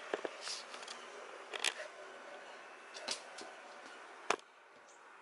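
Scattered sharp clicks and taps from a kitten playing with a toy on a laminate floor: paws, claws and the toy knocking on the boards, about five of them, the sharpest about four seconds in.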